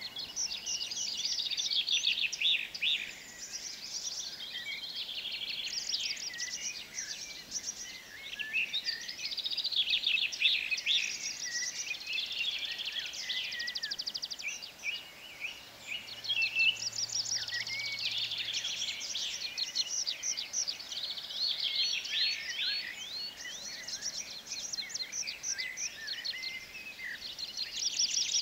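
Songbirds singing, a dense, unbroken stream of quick high chirps and trills.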